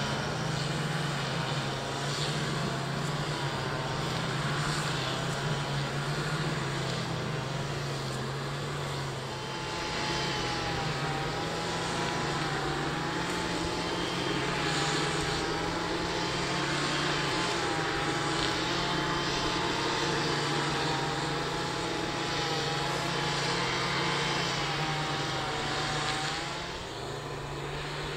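Airbus A380 jet engines running at low power: a steady low hum with a faint wavering whine above it. The noise drops a little near the end.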